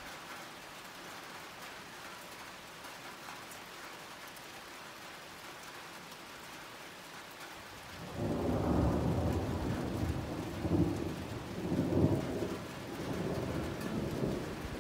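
Steady hiss of rain falling. About halfway through, a long rolling rumble of thunder sets in and swells several times, loudest near the end.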